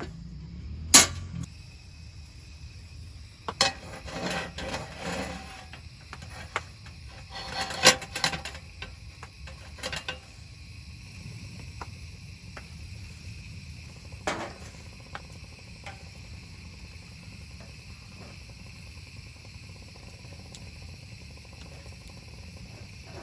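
Camp cookware and utensils being handled: scattered knocks and clinks, the sharpest about a second in and a cluster near eight seconds, over a steady faint background hum.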